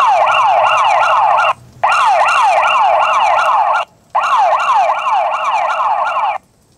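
Boblov KJ09 body camera's built-in siren sounding through its small speaker: a fast yelping siren that sweeps up and down several times a second, in three bursts of about two seconds each with brief gaps between them.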